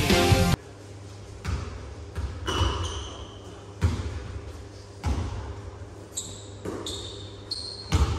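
Basketball bouncing on a gym floor with irregular echoing thuds, and sneakers squeaking on the court several times. Music cuts off about half a second in.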